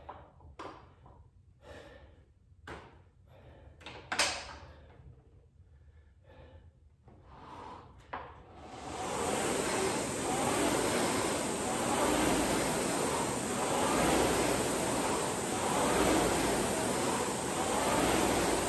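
Concept2 rowing machine's fan flywheel whooshing once rowing starts about halfway through, swelling and easing with each stroke about every two seconds. Before that, scattered small knocks and handling sounds, the loudest about four seconds in.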